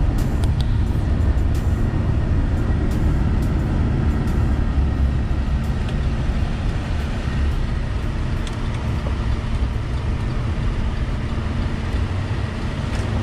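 Diesel engine running with a steady low rumble and a few faint clicks.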